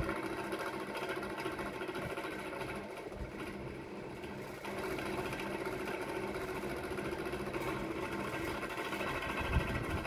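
Vintage Sanyo 12-inch table fan running and oscillating before repair: a steady mechanical motor hum with a fine rapid pulse, noisy as the owner describes it, a little louder from about halfway.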